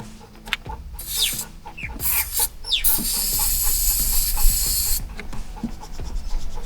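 An aerosol can sprays in a steady hiss for about two seconds in the middle, with scattered clicks and short squeaky chirps before it.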